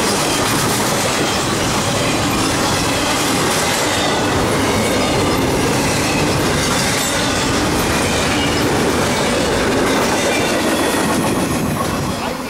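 A loud, steady rush of the empty intermodal well cars of a freight train rolling past close by, steel wheels running on rail. It falls off near the end as the last cars go by.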